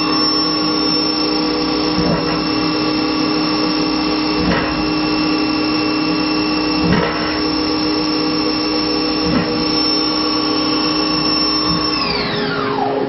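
A CNC milling machine's spindle runs at a steady high speed with a whine of several held tones while it machines an aluminium salt shaker under flood coolant. Short bursts of cutting noise come about every two and a half seconds, four times. Near the end the spindle winds down and the whine falls in pitch.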